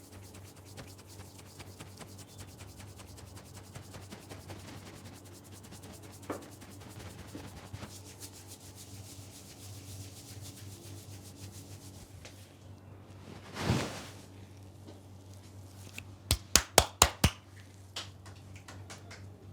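Hands rubbing and kneading a scalp and hair during a head massage: a steady, soft, scratchy rubbing over a low hum. About fourteen seconds in there is a brief swelling whoosh, and soon after, a quick run of six sharp snaps within about a second, the loudest sounds here.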